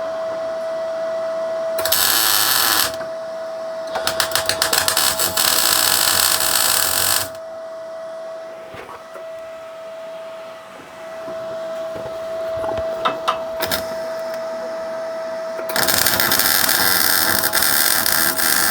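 Electric arc welding a steel box-section bracket onto a steel rack: three spells of crackling, hissing arc, a short tack and then two longer runs. A steady high hum sounds under them throughout.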